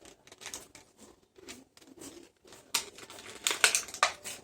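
Parts and packaging being handled: crinkling rustles and light clicks, with a few sharper knocks near the end.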